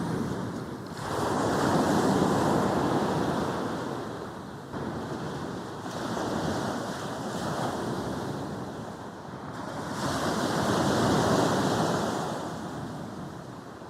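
Sea waves breaking and washing up a beach. The surf swells and falls back in slow surges, loudest about two seconds in and again near eleven seconds, easing off toward the end.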